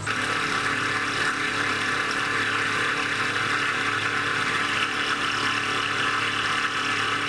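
CNC milling machine's end mill cutting a metal block under flood coolant: a steady spindle whine with a cutting hiss that holds unchanged.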